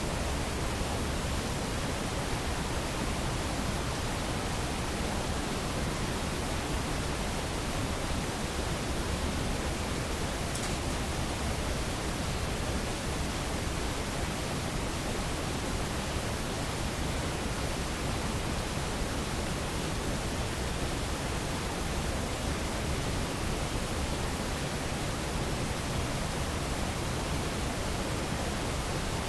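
Steady, even hiss of a recorder's noise floor in an amplified night recording, with one faint tick about ten seconds in.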